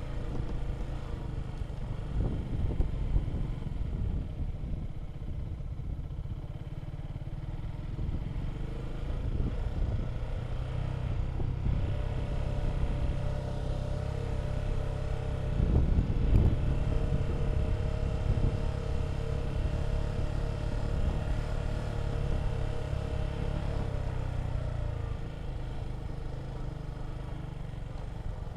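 A motor vehicle's engine running under way, with a steady low rumble of road and wind noise. The engine tone changes pitch through the middle stretch, and a brief louder bump comes a little past halfway.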